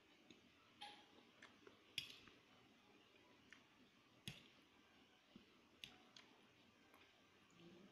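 Faint, scattered clinks of a metal fork and spoon tapping and scraping against a stainless steel plate while noodles are stirred, with a handful of sharp clicks, the loudest about two seconds in and just after four seconds.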